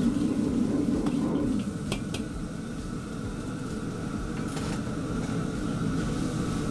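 Gas wok burner running with a steady low rush under a carbon-steel wok of stir-fry, with a few light clinks of the steel ladle against the wok.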